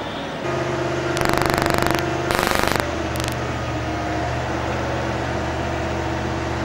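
Construction-site machinery: an engine running steadily at a low pitch, with two short bursts of rapid mechanical hammering a second or two in and a brief third one just after.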